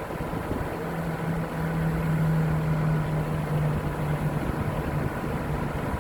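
Excavator engine running, with a low steady hum that sets in about a second in, sags slightly in pitch and fades near the end.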